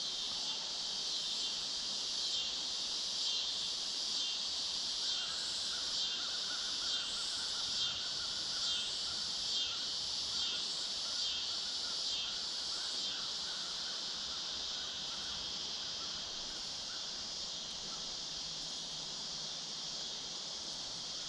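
Evening insect chorus: a steady high-pitched buzzing with a regular pulse a little faster than once a second, the pulsing fading out about two-thirds of the way through, and a fainter, lower steady trill from about five seconds in.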